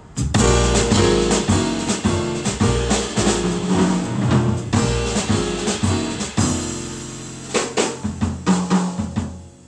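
Jazz piano trio playing a blues: upright bass, piano and drum kit, with a run of drum hits near the end.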